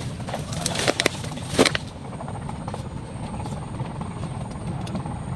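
A steady low rumble, with a few sharp clicks and knocks in the first two seconds as fishing gear is handled.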